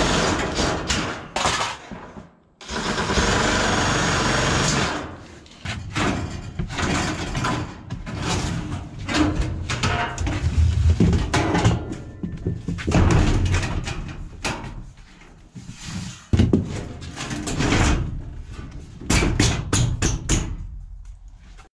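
A cordless power shear cutting corrugated sheet-metal panel, running steadily, pausing briefly and starting again, then stopping about five seconds in. After that, the corrugated metal panels are handled and set against the wall framing, giving irregular bangs, rattles and low thumps, with a quick run of sharp clicks near the end.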